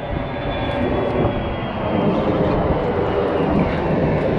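Steady engine drone with a faint high whine that fades about halfway through.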